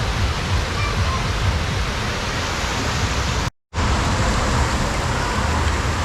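Steady rushing noise of running water and wind buffeting the microphone, with a heavy low rumble. The sound cuts out completely for a moment about three and a half seconds in.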